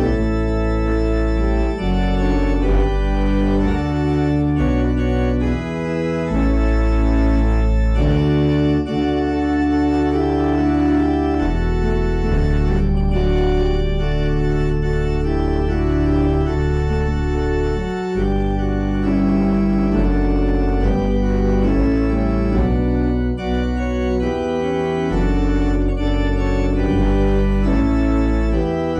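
Organ playing offertory music: slow, sustained chords over deep bass pedal notes, changing every second or two.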